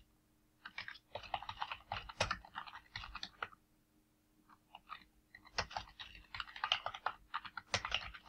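Typing on a computer keyboard: two quick runs of keystrokes with a short pause about halfway through.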